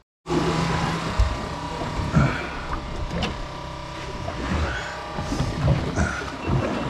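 A boat's engine running steadily with a constant hum, coming in just after a brief moment of silence at the start.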